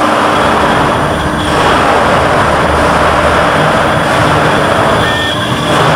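CNC router spindle milling a clamped metal block: a loud, steady cutting noise over the running spindle and machine.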